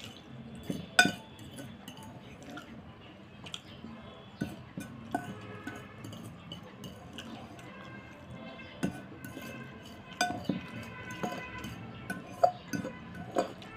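Metal fork clinking and scraping against a ceramic bowl while eating noodles: a series of sharp, irregularly spaced clinks, the loudest about a second in.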